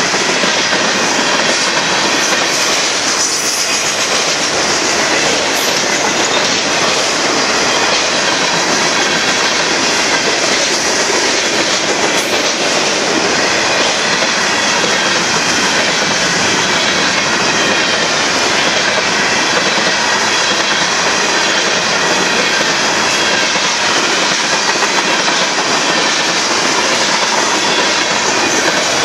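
Cars of a Union Pacific mixed freight train rolling past close by: a loud, steady rush and rumble of steel wheels on rail, with the clickety-clack of wheels over rail joints and a thin high wheel squeal riding over it.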